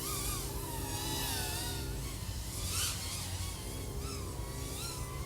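iFlight AOS 3.5 V5 FPV quadcopter's brushless XING 1504 motors and propellers whining, the pitch rising and falling as the throttle changes.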